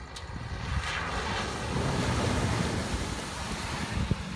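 Subaru Forester's flat-four engine running as the SUV drives past close over gravel, tyres crunching on the stones, growing louder over the first two seconds and then easing.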